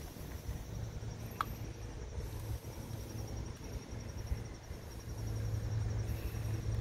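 Outdoor ambience: a steady low rumble that swells over the last couple of seconds as a vehicle draws near. Over it runs a faint, even, high-pitched insect trill, and there is a single sharp click about a second and a half in.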